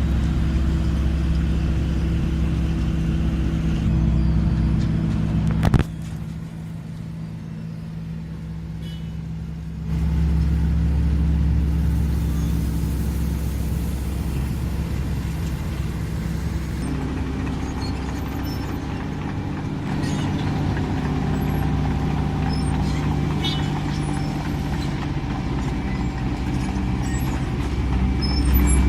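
Diesel engine of a Wirtgen W 100 F road milling machine running steadily with a low hum; the level drops sharply about six seconds in and comes back up about four seconds later.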